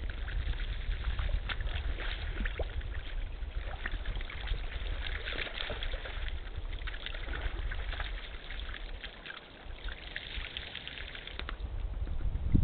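Red deer hinds and calves wallowing in a shallow muddy puddle: water sloshing, trickling and splashing in many small crackles as they shift about, over a steady low rumble.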